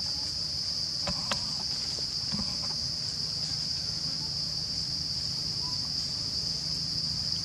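Steady, high-pitched drone of an insect chorus, with a few faint clicks about a second in.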